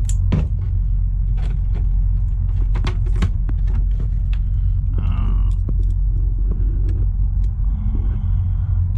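Nitro engine of an HPI Savage RC truck idling steadily, with scattered short clicks. The idle is still set too low.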